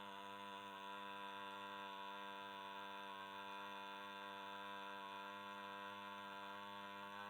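A steady, unbroken drone of a held 'aa' (आ) vowel, as in a chanted mantra, on one unchanging pitch.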